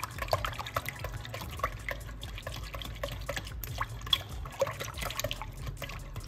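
A wire whisk stirring thick homemade yogurt in a pot: irregular wet squelches and splats, with light clicks of the wires, all through.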